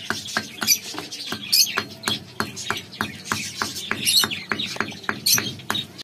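Hammer striking a piece of old brick, with quick, regular blows at about three to four a second, crushing it into powder. Birds chirp over the blows.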